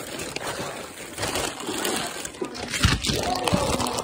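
Rustling and crinkling handling noise, with scattered short crackles, from gift wrap and fabric being moved about, with indistinct voices in the background.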